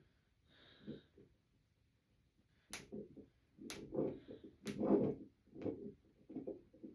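Finger knuckles cracking: three sharp pops about a second apart, amid muffled rustling of the hands.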